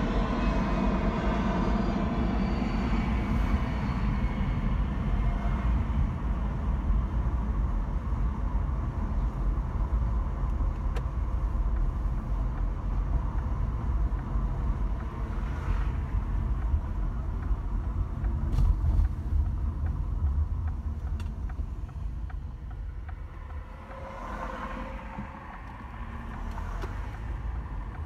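A jet airliner's engine noise, with a whine above a rumble, dying away over the first few seconds and leaving a steady low rumble. Near the end another engine sound swells briefly and fades.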